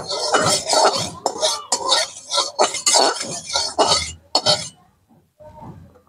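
Metal spatula scraping round and round a metal karahi, spreading hot oil, in quick repeated strokes that stop about three-quarters of the way through.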